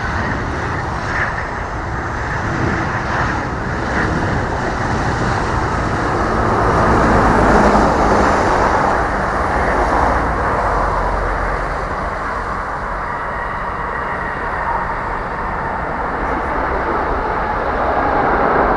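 Jet noise from a Boeing 737-800's CFM56-7B engines as it lands and rolls out. It is a steady, rushing rumble that swells to its loudest about eight seconds in and again near the end.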